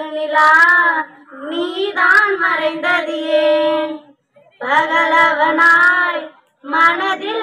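A child singing a Tamil song solo, in long held phrases with short pauses for breath between them.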